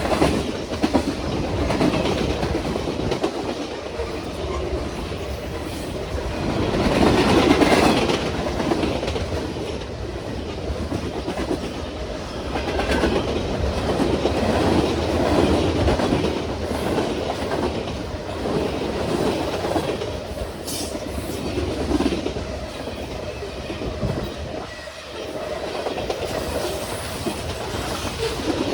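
Norfolk Southern manifest freight train rolling past at about 50 mph: a continuous rush of wheels on rail that swells louder around seven seconds in and again near the middle.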